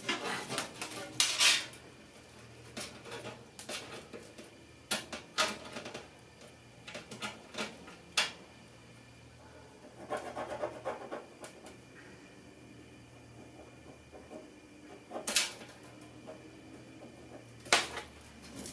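Scattered clicks, taps and scratches of tools being handled against sheet-metal stovepipe while hole positions are marked on it.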